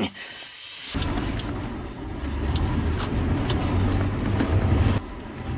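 Car engine and road noise heard from inside the cabin while driving. It starts abruptly about a second in after faint hiss, grows louder over the next few seconds, and drops off abruptly near the end.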